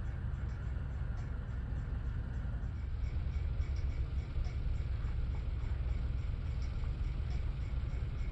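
Steady low rumble of road traffic in a city.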